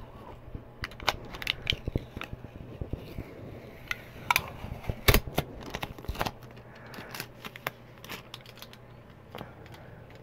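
Coupon being pulled off a product package and the package handled: scattered crackles, rustles and light knocks, the loudest about five seconds in.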